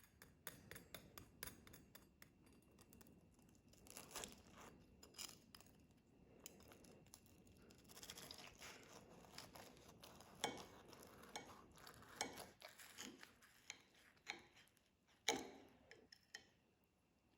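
Faint clinks and taps of kitchen utensils and dishes being handled, scattered irregularly, with two louder knocks about ten and fifteen seconds in.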